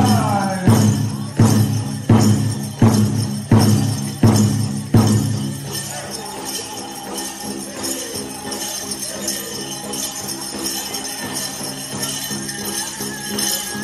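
Powwow drum and singers: the big drum struck in heavy, even beats about one and a half a second, under high voices singing, with the jingling of bells on dancers' regalia. The drumbeats stop about five seconds in, leaving quieter singing and the jingle of bells.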